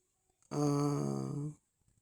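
A man's drawn-out hesitation filler, a held "ehh" lasting about a second, in the middle of a sentence.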